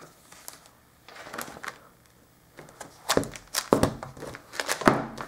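Handling noise as a plastic remote and a ring-bound manual are moved about: faint handling sounds at first, then a cluster of sharp knocks and clicks about three seconds in and another near the end.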